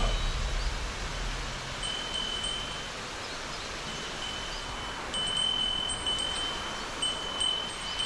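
Steady rush of a waterfall, with a thin high ringing tone coming and going over it.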